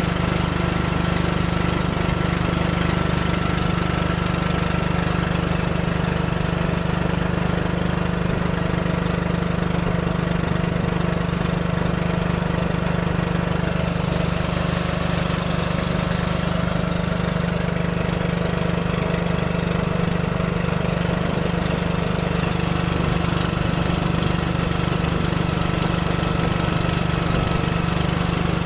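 Small engine of a motorized wooden river boat running steadily at an even speed as the boat cruises.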